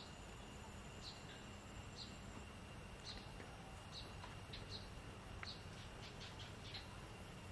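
Faint outdoor ambience of short high chirps, roughly one a second and bunching together about six seconds in, over a steady hiss and a thin steady high tone.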